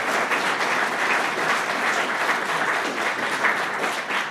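Audience applauding: many people clapping steadily, fading out just after the end.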